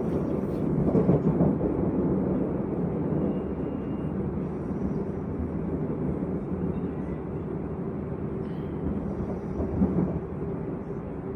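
Inside an SNCF Z 50000 (Francilien) electric multiple unit running between stations: a steady low rumble of wheels on rail and running gear, swelling briefly about a second in and again near the end.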